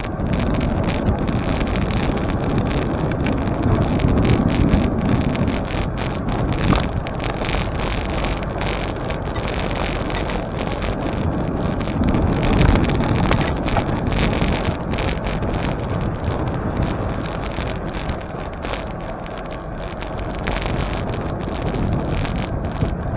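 Wind rushing over the microphone during a bicycle ride, a steady roar of noise that swells and eases a little.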